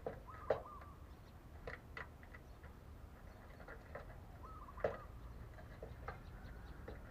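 Scattered faint light taps and clicks, a few seconds apart, with two brief faint bird chirps.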